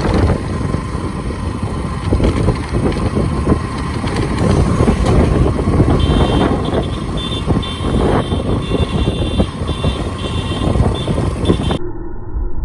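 Wind rushing and buffeting over the microphone of a moving motorcycle, with engine and road noise underneath. From about six seconds in, a high beeping comes and goes. Near the end the sound cuts abruptly to a duller, quieter street noise.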